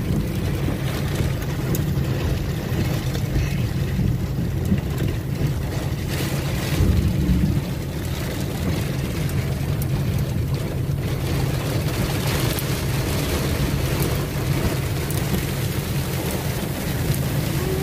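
Steady low rumble of a car driving through heavy rain, heard from inside the cabin: road and tyre noise with rain and wind against the car. A brief deeper rumble comes about seven seconds in.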